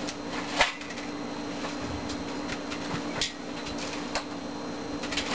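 A few separate sharp metal clicks and knocks from the hand winch and welded frame of a homemade forklift being worked, over a steady low hum.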